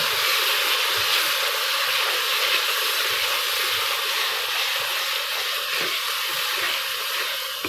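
Onion, tomato and spice masala sizzling steadily in hot oil in a karahi while being stirred with a wooden spatula, a constant frying hiss that eases a little near the end.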